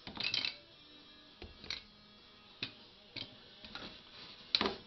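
Scattered light clicks and knocks from air conditioner condenser fan parts, the fan blade and shroud, being handled and fitted into place: about six irregular strikes, the loudest near the end.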